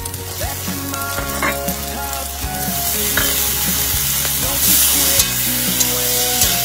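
Egg and vegetables sizzling in a hot metal wok as they are stir-fried and scraped with a metal spatula. The sizzle grows louder about halfway through, as carrot, bell pepper, peas and pineapple go in.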